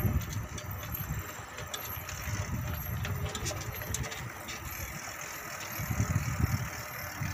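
Wind rumbling over the microphone while riding a bicycle, swelling in gusts about two and six seconds in, with a few light clicks and rattles from the bike.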